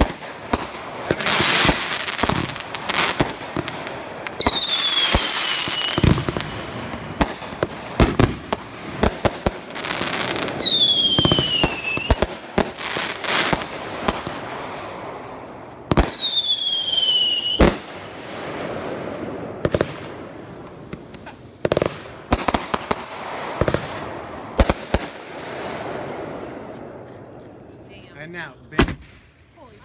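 Consumer aerial fireworks going off: a rapid run of sharp bangs and crackling bursts, with three whistling shells whose whistles fall in pitch, about five, eleven and sixteen seconds in. The bangs thin out and grow quieter near the end.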